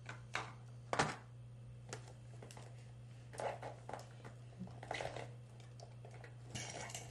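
Scattered light clicks and taps of plastic pens and small cosmetics being handled, the sharpest about a second in, over a steady low hum.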